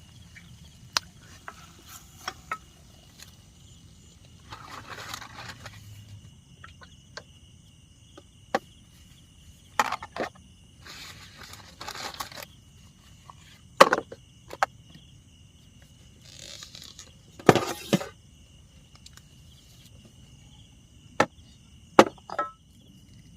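Steady chirring of crickets and other insects. Over it come scattered sharp clicks and knocks and a few brief rustles, from handling utensils and food.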